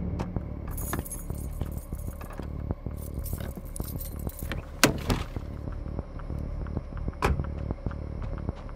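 Keys jangling in a hand, in two short spells, followed by two sharp knocks about two and a half seconds apart, over a low steady drone.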